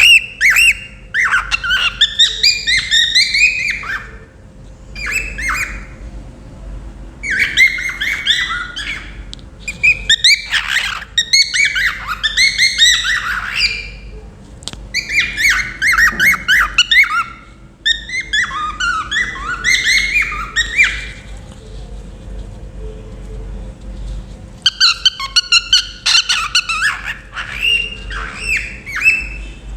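Cockatiel chirping loudly in runs of quick, rapid chirps. Each phrase lasts a couple of seconds, with short pauses between them and a longer lull about two-thirds of the way through.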